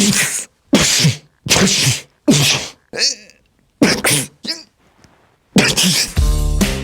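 A person doing a quick series of mock sneezes out loud: short, sharp, explosive vocal bursts about one every three-quarters of a second. Near the end comes a longer one that ends in a low, buzzing rasp.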